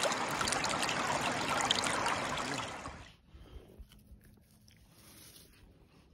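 Shallow stream rippling over stones, a steady rush of water close to the microphone that cuts off about three seconds in, leaving only faint rustles and clicks.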